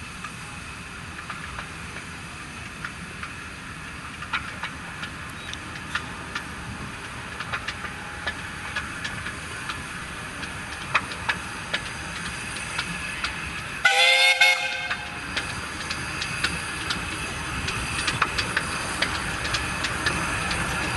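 Miniature-railway steam locomotive train running, with irregular clicks from the wheels over the rail joints. About two-thirds of the way through, the locomotive's steam whistle gives one short blast. The running sound grows gradually louder toward the end.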